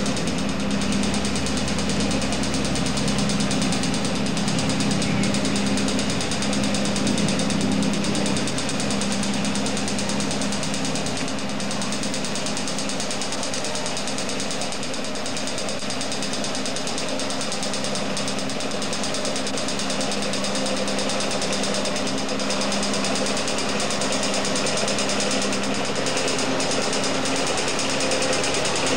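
Diesel engine of a tourist tram running steadily as the tram crawls across a timber trestle bridge, a constant low hum under a rumbling drone.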